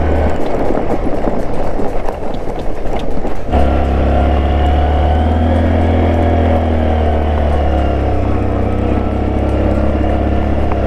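Motorcycle engine labouring up a steep, rocky off-road track. For the first few seconds it is mixed with rough rattling noise. About three and a half seconds in, the sound changes abruptly to a steady low engine drone that rises and falls slightly.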